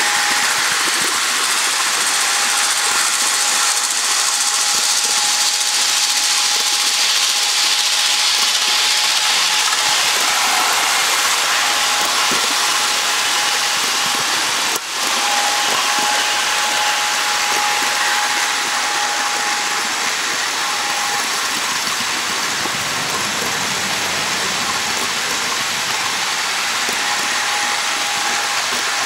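HO-scale model railroad camera car rolling along the track: a steady rolling hiss with a thin, high, steady whine that drops out now and then, and one sharp click about fifteen seconds in.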